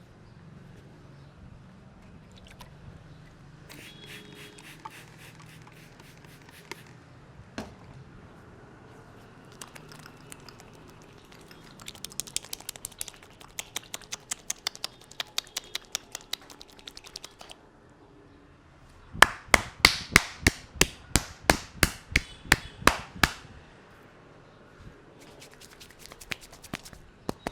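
Head massage by hand: runs of sharp snaps and taps on the head and hair, about four a second. A quieter run comes about midway, then a louder run a few seconds later.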